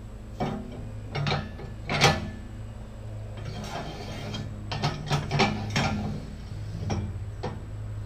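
Metal clanks, clicks and rattling from fitting clamp-on pallet forks to a tractor bucket, over a steady low hum.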